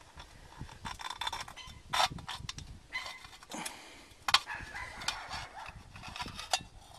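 Tin cans of a homemade alcohol stove being handled and fitted together: metal scraping with short squeaks and a few sharp clicks, the clearest about two seconds in and past the four-second mark.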